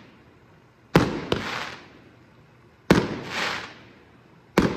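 Aerial firework shells bursting: three sharp bangs about two seconds apart, the first followed closely by a second crack. Each bang trails off into a short hiss.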